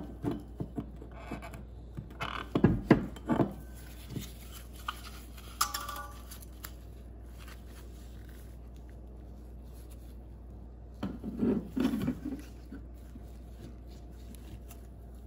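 Gloved hands handling the metal housing and diaphragm parts of a disassembled marine mechanical fuel pump on a workbench: scattered light knocks, clicks and scrapes, bunched about two to three and a half seconds in and again about eleven to twelve seconds in, with a quiet stretch between. A steady low hum runs underneath.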